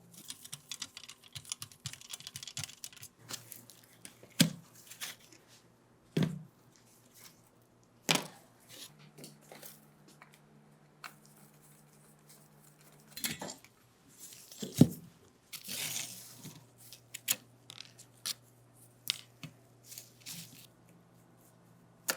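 Scattered knocks and clicks of parts and tools being handled, with brief bursts of rustling or scraping, over a faint steady hum.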